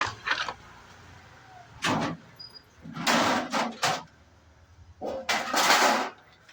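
Several short bursts of scraping and knocking from a microwave oven's metal casing and parts being handled and taken apart.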